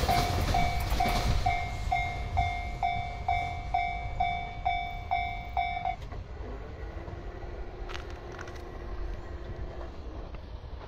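Japanese railway level-crossing warning bell ringing about twice a second over the fading rumble of a train that has just passed. The bell stops about six seconds in, the sign that the train has cleared the crossing. A faint hum follows.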